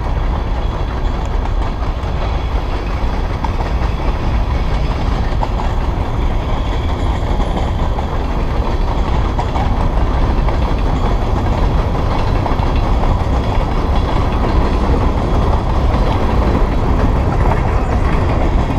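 Freight train of covered hopper cars rolling past a railroad crossing: a steady rumble and rattle that grows slightly louder as the bicycle closes in on the tracks.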